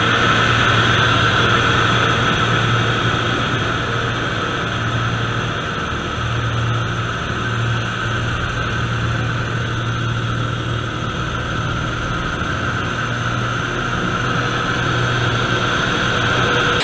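Zlin 50 aerobatic plane's piston engine and propeller running, heard from inside the cockpit with airflow noise, through a stall turn. The sound eases a little midway and builds again near the end.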